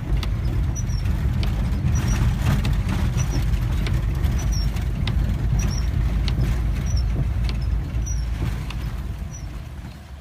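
VW bus driving over rough ground: a steady low rumble with scattered knocks and a short high squeak about every second, dying away over the last two seconds.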